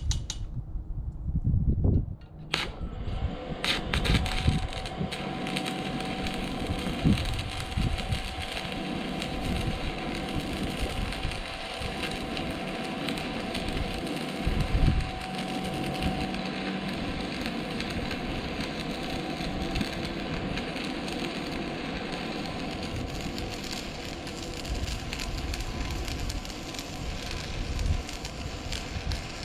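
Stick-welding arc crackling steadily as a 6013 electrode runs a bead on thick steel. The arc strikes about two seconds in and then burns without a break.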